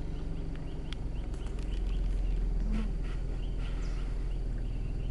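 Low, steady hum of a vehicle engine idling, with faint, short, high chirps from wildlife repeating over it.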